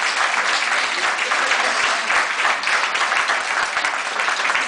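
Audience applauding: many hands clapping steadily in a dense patter.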